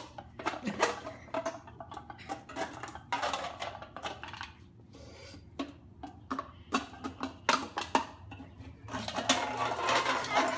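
A metal can clattering and scraping on a concrete patio as a puppy carries, drops and pushes it about, in a run of irregular clanks, busiest near the end.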